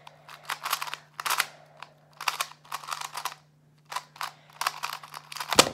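A 2x2 speed cube being turned fast in a speedsolve: rapid clusters of plastic clicks and clacks, with one louder knock near the end as the solve finishes.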